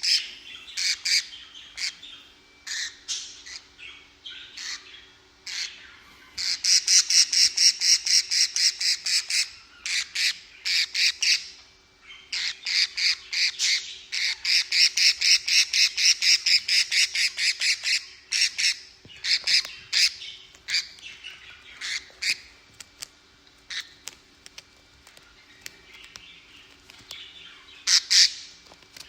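Budgerigars squawking: sharp, high-pitched calls repeated in quick runs of about four a second, with scattered single calls between the runs.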